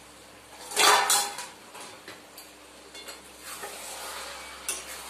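Metal spoon stirring and scraping a thick jackfruit and chickpea curry in a steel pan, with one loud metal clatter about a second in and softer scrapes after it.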